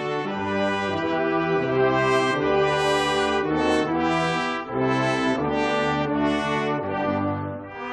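Military brass band playing a slow, stately piece of held brass chords that change about once a second.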